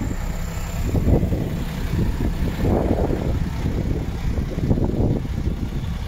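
MAN TGX 33.500 truck's straight-six diesel engine idling, with wind buffeting the microphone in uneven gusts.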